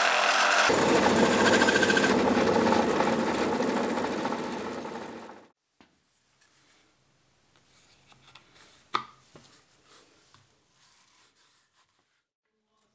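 Bandsaw running and cutting through a small template piece, the blade biting into the material about a second in. It stops abruptly about five and a half seconds in, leaving faint handling noises and one sharp light tap.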